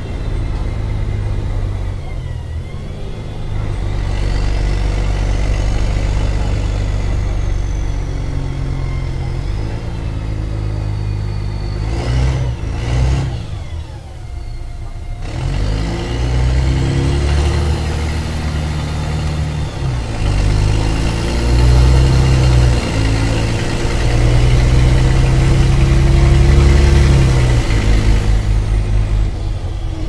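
Mercedes-Benz O-500MA articulated bus with Voith automatic gearbox, its diesel engine running hard with a holed exhaust. A high whine rises and falls over the engine rumble several times as the bus accelerates and eases off, with a brief dip about halfway.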